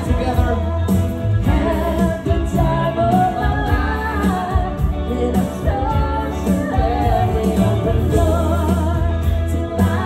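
Live band playing a pop song: a male and a female singer singing over drums, electric guitar and keyboard, with a steady, heavy bass line underneath.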